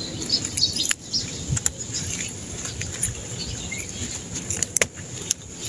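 Leaves rustling and several sharp snaps as water spinach stems are picked by hand, with a few faint bird chirps.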